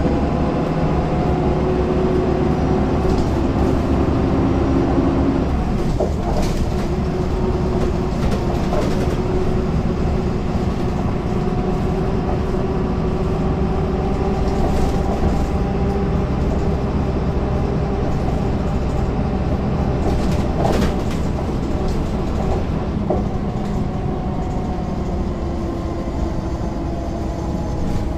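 MAN NL202 city bus's D08 diesel engine idling steadily, heard from inside the passenger cabin, its pitch wavering slightly. A couple of short knocks or rattles sound over it, about six seconds in and again later.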